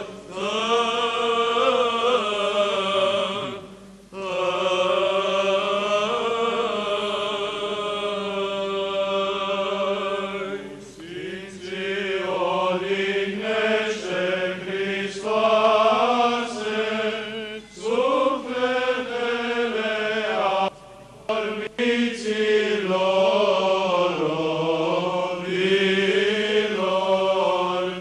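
Male cantors' choir singing Byzantine chant from the Orthodox memorial service: a long, drawn-out melodic line over a steady held drone note (the ison), broken by a few brief pauses.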